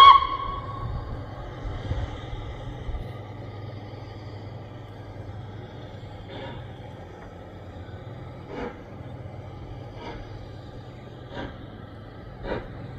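Distant steam locomotive working slowly toward the listener: soft exhaust chuffs, first about two seconds apart and then closer together near the end, over a steady low hum. A short, loud pitched tone sounds at the very start.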